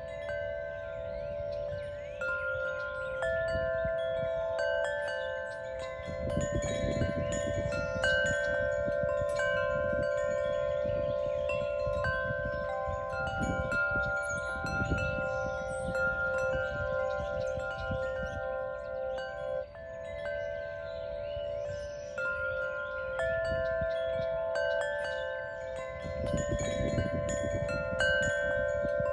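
Wind chimes ringing: many clear tones struck at irregular moments, each ringing on and overlapping the others, with a low rumble swelling around six seconds in and again near the end.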